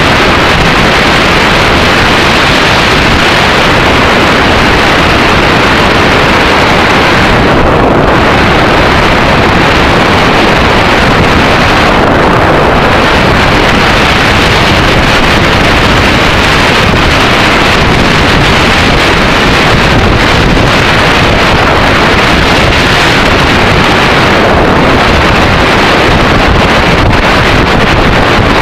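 Loud, steady wind rush blasting the microphone of a camera on a motorcycle riding at road speed, drowning out the bike's engine.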